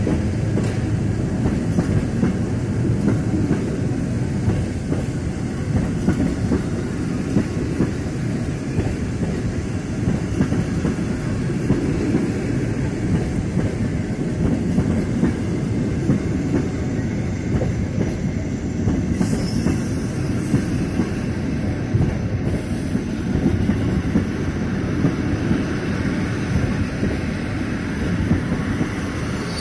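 Passenger coaches of a locomotive-hauled train rolling past, a steady rumble of wheels on rail with a rhythmic clickety-clack over the rail joints.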